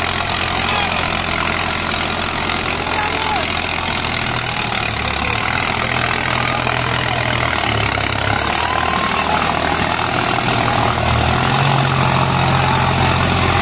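Heavy diesel tractor engines running. Their low note dips briefly a few times and comes back stronger and louder near the end, over a steady hiss.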